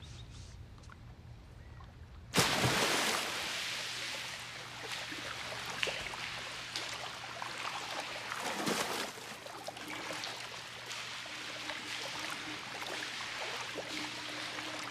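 A loud splash about two seconds in as a body enters a swimming pool, then continuous splashing and churning water from someone swimming.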